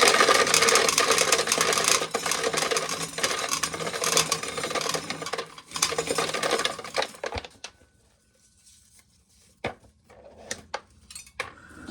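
Corn sheller at work, dry kernels rattling and clattering steadily as they are stripped from the ears, for about seven seconds; it then stops, leaving a few scattered clicks of kernels.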